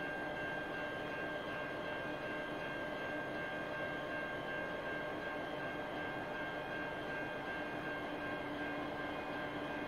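Diesel locomotive idling: a steady drone with a high, steady whine, over a constant hiss.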